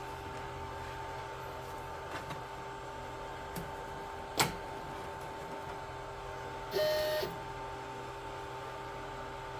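Glowforge laser cutter's cooling fan humming steadily during its startup sequence, with a few light clicks, one sharp click about four and a half seconds in, and a brief motor whir near seven seconds.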